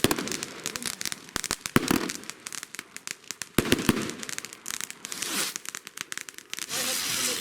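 Consumer firework cake going off: a rapid, irregular string of sharp bangs and crackles, with stretches of hissing between them.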